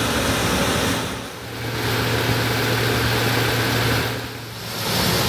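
Allis-Chalmers Gleaner F2 combine running with a steady drone from its six-cylinder diesel engine, dipping briefly twice, about a second in and near the end.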